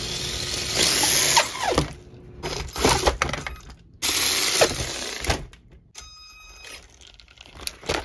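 The RC truggy's brushed electric motor and drivetrain revved with the wheels off the ground in about three short bursts, each spinning up and winding down with a gear whine. The motor still runs after overheating and smoking on a 3S battery.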